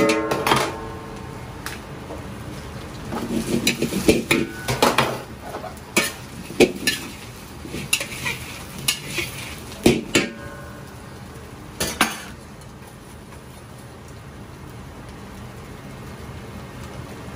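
Metal spatula scraping and clanking against a wok as fried chicken pieces are stir-fried and tossed, over a steady sizzle. The irregular clanks stop about twelve seconds in, leaving only the low hiss.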